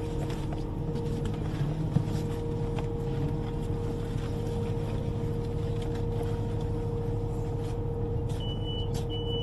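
Public transport vehicle running steadily, heard from inside, with a constant motor hum. Near the end come two short high beeps.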